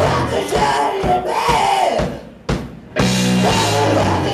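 A live hard rock band playing: drum kit and electric guitar at full volume. The band stops for a moment about two seconds in, then comes back in.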